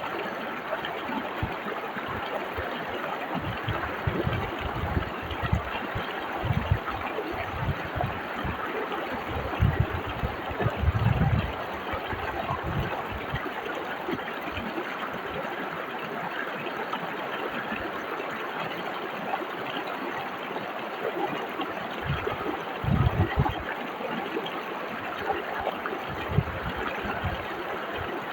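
Whitewater river rushing steadily over rocks, a continuous even rush, with brief low thuds now and then, loudest around ten to eleven seconds in and again near twenty-three seconds.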